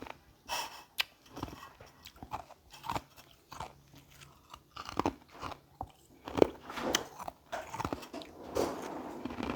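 Carbonated ice being bitten and chewed close to the microphone: irregular crisp crunches, a few a second, loudest about halfway through and denser near the end.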